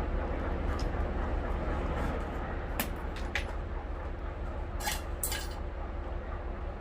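A few sharp clicks and clinks of hand tools and plastic parts as a car's cool box is taken apart to get at its fan motor, over a steady low hum.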